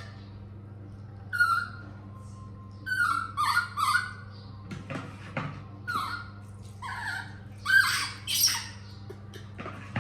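A baby monkey calling in a string of short, high squeaks that drop in pitch, about ten of them, over a steady low hum.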